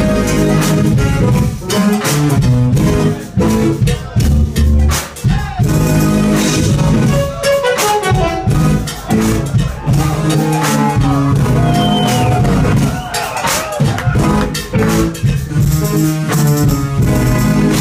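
Live band playing an instrumental jazz-funk jam, with drum kit and electric guitar prominent.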